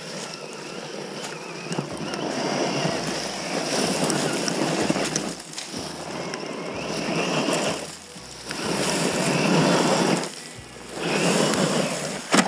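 Radio-controlled crawler truck driven in about four bursts of throttle, its tyres churning and scrabbling in loose dirt, with a faint electric motor whine.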